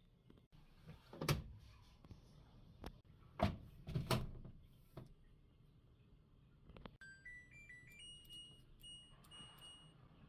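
A few handling knocks and clunks, then a household appliance's electronic chime: a short melody of beeps stepping up in pitch.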